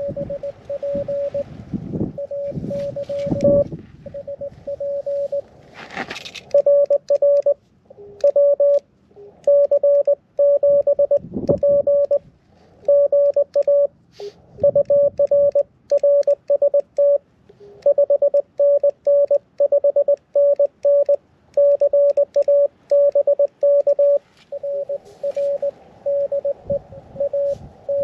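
Morse code (CW) on a small QRP ham radio transceiver: one steady-pitched tone keyed on and off in dots and dashes. It is softer for the first few seconds and much louder from about six seconds in, just after a short rustling sound.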